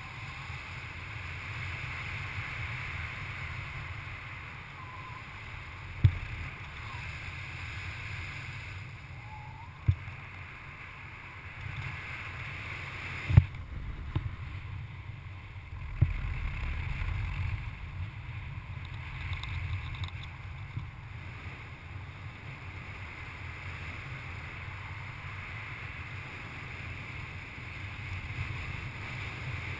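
Airflow rushing over a paraglider's harness-mounted camera microphone in flight: a steady low wind rumble with a hiss over it. A few sharp knocks stand out, the loudest about halfway through.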